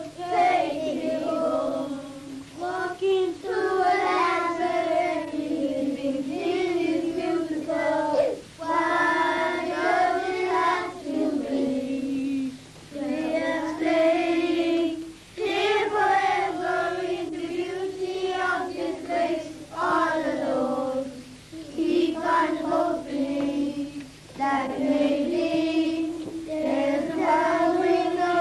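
A group of children singing a song together, in sung phrases a few seconds long with short breaks between them.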